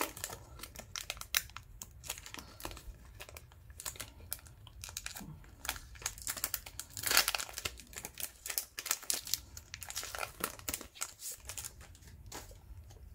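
Foil wrapper of a trading-card pack crinkling and tearing as it is pulled open by hand, in irregular rustles with a louder stretch of crinkling about seven seconds in.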